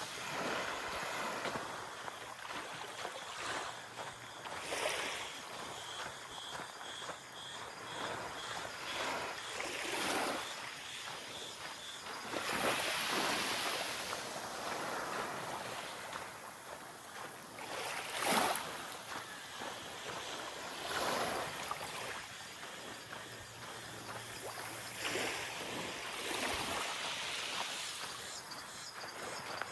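Small waves washing onto a sandy beach, an irregular hiss of surf that swells and falls back every few seconds.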